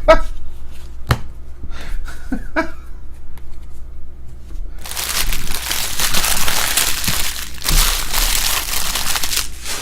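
Plastic-foil trading card pack wrappers crinkling and crumpling for about five seconds, after a few sharp clicks in the first half.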